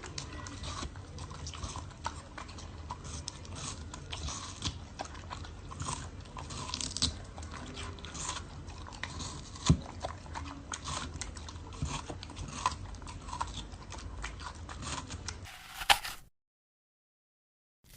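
An animal chewing and crunching food close to the microphone: a dense, irregular run of small crunches and clicks. It stops abruptly about 15 seconds in, followed by silence and then a couple of short sharp sounds near the end.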